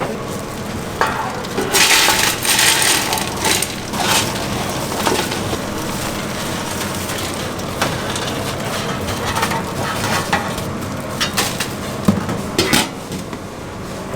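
Food sizzling as it cooks, with stirring and clattering of kitchen utensils and pans. There is a louder stretch about two seconds in and sharp clinks near the end.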